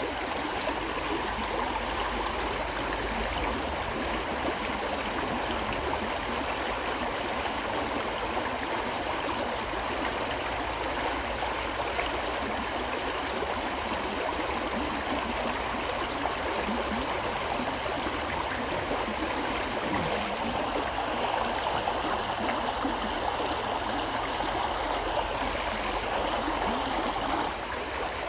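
A river flowing steadily, a continuous even rush of water over the whole stretch. The level dips slightly near the end.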